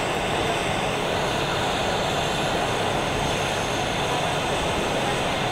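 Steady outdoor city background noise: a continuous, even rumble with no distinct events.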